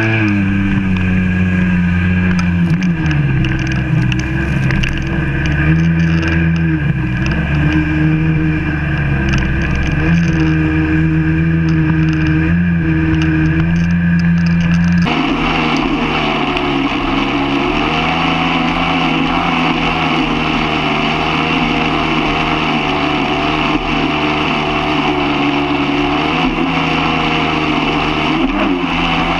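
Two-stroke Sea-Doo personal watercraft engine running at speed over the water, its pitch rising and falling with the throttle, under the rush of water and spray. About halfway through the sound changes abruptly to a steadier engine note with more rushing water from the wake.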